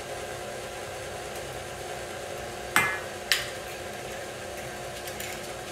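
KitchenAid stand mixer running steadily at a turned-down speed, creaming butter, sugar and eggs in its steel bowl. About three seconds in, two sharp knocks half a second apart stand out above it.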